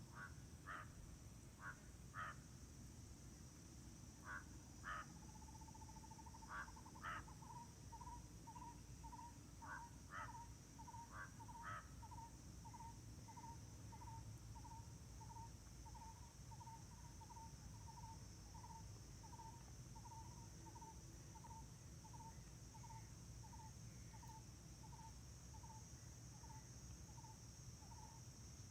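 Faint wild bird calls: a few scattered short calls, then one bird repeating a single short note evenly, about one and a half times a second, over a steady high insect drone.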